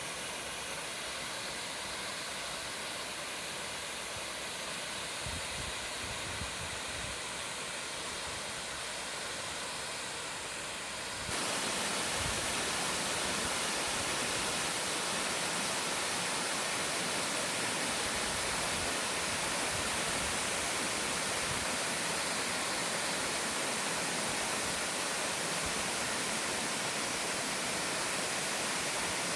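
Steady rushing roar of a tall waterfall with a 60-metre free drop. About eleven seconds in it jumps abruptly louder and brighter, then holds steady.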